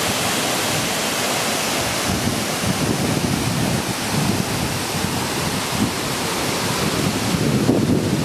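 Waterfall pouring in a steady rushing hiss, with wind buffeting the microphone in low, uneven gusts from about two seconds in.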